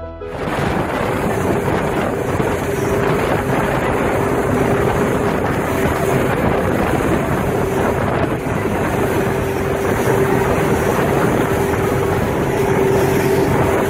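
Motorboat running at speed over choppy water: a steady engine drone under the rush of spray and water, with wind buffeting the microphone.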